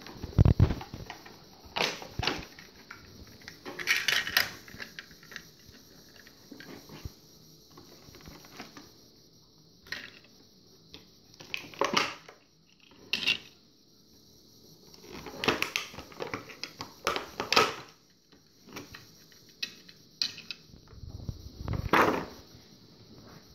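Toy cars and small plastic figurines clicking and clattering against a tabletop as they are handled, in scattered knocks and short clusters.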